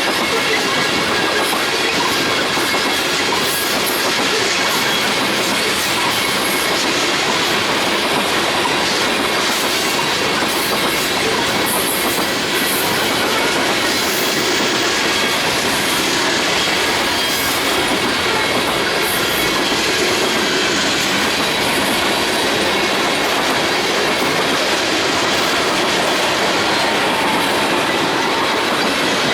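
A train rolling past close by: a steady loud noise of steel wheels on rail with clickety-clack over the joints, and brief high wheel squeals now and then.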